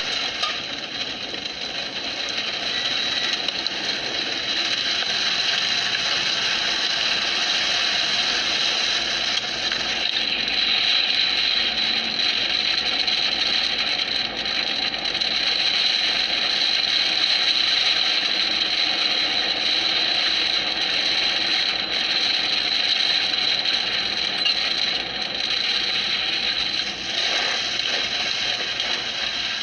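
A loud, steady rushing noise with a thin high whine in it, starting suddenly out of silence and holding level throughout.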